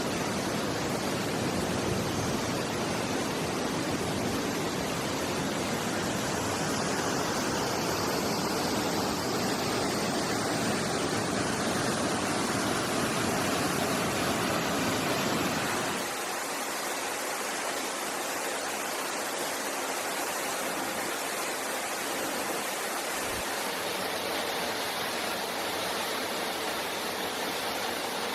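Waterfall rushing: a steady, full-range roar of falling water. About halfway through, the deep low rumble drops away and the rush turns thinner.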